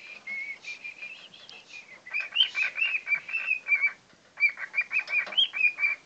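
Pet bird whistling a song: held, clear whistled notes for about two seconds, then quick runs of short chirped notes, with a brief pause about four seconds in.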